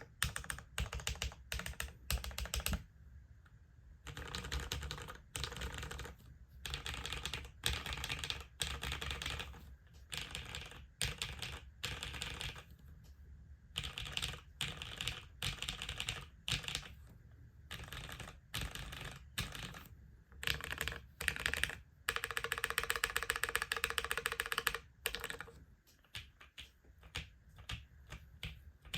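Typing on an LZ REs custom TKL mechanical keyboard with a polycarbonate plate, lubed and filmed vintage Cherry MX Brown switches and GMK keycaps. The keystrokes come in bursts separated by short pauses, with a dense, fast run of strokes about three quarters of the way through and sparser strokes near the end.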